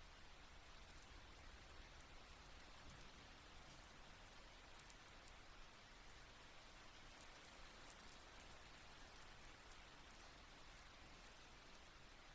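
Light, steady rain, faint, with a soft patter of scattered drops and no thunder.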